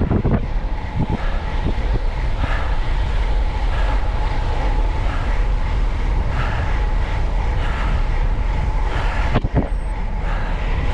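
Wind buffeting an action camera's microphone during a fast downhill bicycle descent: a loud, steady low rumble with a faint steady whine underneath and a couple of brief knocks about nine seconds in.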